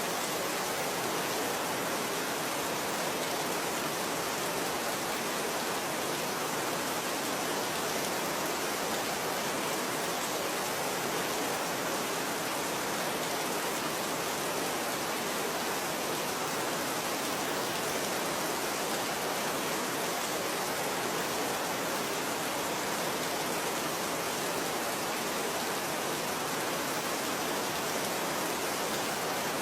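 Steady, even rain hiss with no separate drops standing out.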